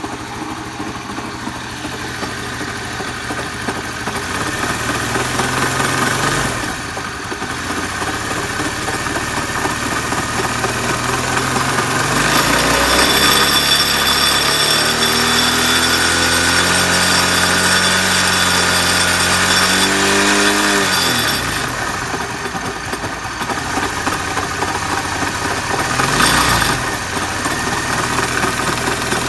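Chinese-made engine running with an abnormal noise. It is revved up slowly for several seconds in the middle, the pitch climbing, then drops back quickly to a lower speed, with a short blip of revs near the end.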